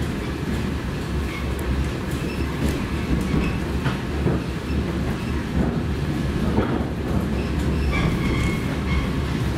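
Train running along the track: a steady low rumble with occasional clicks and a brief squeal about eight seconds in.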